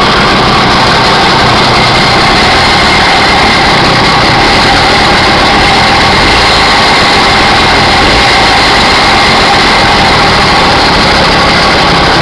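Small 48cc two-stroke motorized-bicycle engine running at a steady, loud speed, making a strange noise that the owner cannot place.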